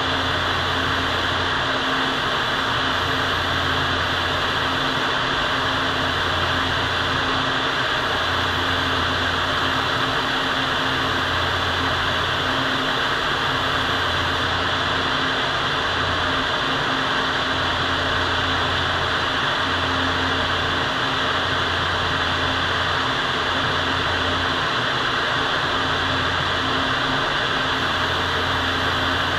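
Steady rushing air inside a paint spray booth: the booth's ventilation fans running and a compressed-air spray gun hissing as panels are sprayed, with an uneven low hum underneath.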